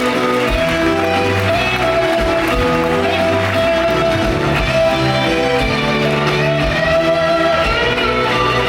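Instrumental curtain-call music from the musical's band, with sustained notes over a bass line that moves from note to note.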